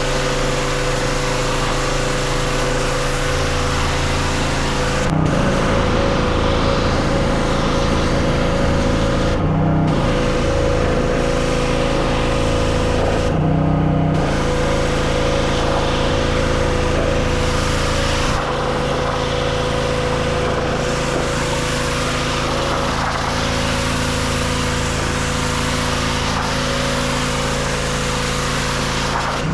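Gasoline pressure washer engine running steadily, with the hiss of the wand's water jet blasting a vinyl fence. The spray hiss drops out briefly twice.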